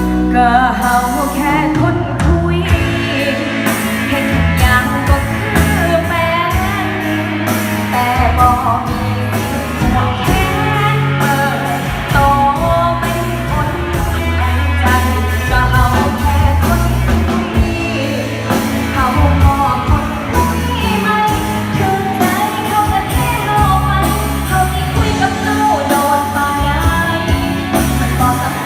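Live band playing a pop-rock song through a PA, with a steady drum beat, bass and electric guitar.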